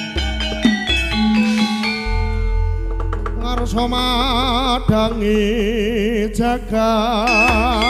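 Javanese gamelan music: ringing metallophone notes over kendhang drum strokes. From about halfway through, a held melody line with a strong wavering vibrato comes in.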